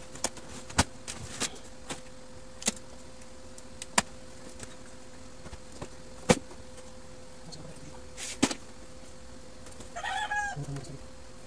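Scattered sharp plastic clicks and knocks as the casing and scanner unit of a Brother DCP-1615NW laser printer are handled and fitted back together, over a steady faint hum. Near the end a chicken calls briefly.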